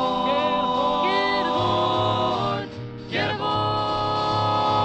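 Background music: an old-time song with held chords and sliding melody lines, briefly dropping away about three seconds in before the chords return.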